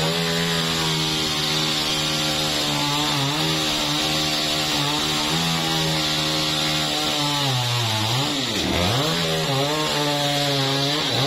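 Two-stroke chainsaw running at high speed while cutting through a tree trunk. The engine note drops and climbs back twice, about eight seconds in and again near the end, as the throttle is eased and opened.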